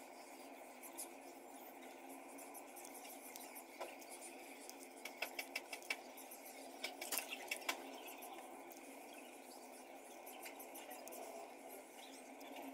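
Faint clusters of small sharp clicks and taps from small craft pieces being handled, over a steady low hum.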